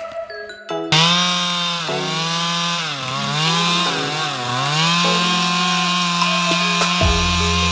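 Stihl two-stroke chainsaw running at high revs, coming in suddenly about a second in. Its pitch sags twice under load as the chain cuts into wood, then holds steady at full throttle.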